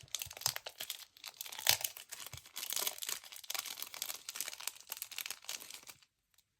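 Plastic packaging crinkling and rustling as a small accessory is handled and unwrapped, with many small crackles; it stops suddenly near the end.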